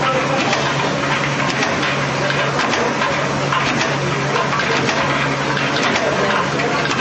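Push-cap assembly machine running: a steady hum and hiss with many small, irregular clicks as the plastic caps move along the feed track and through the rotary star wheel.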